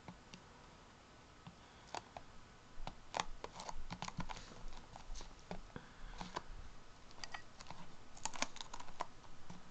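Faint, irregular taps, clicks and paper rustles of paper cutouts being handled and pressed onto a canvas. Almost nothing for the first two seconds, then the taps come in clusters.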